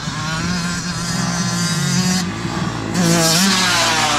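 Dirt bike engine revving up and down as the throttle is worked, its pitch rising and falling; it gets louder about three seconds in.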